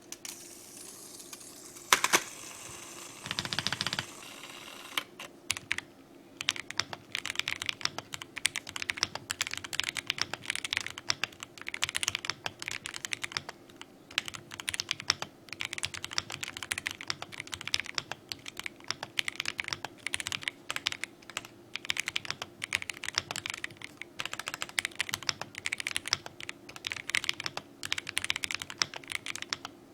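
KeysMe Lunar 01 gasket-mount mechanical keyboard being typed on, with rapid, continuous keystroke clicks from about five seconds in. A single sharp knock comes about two seconds in, before the typing starts.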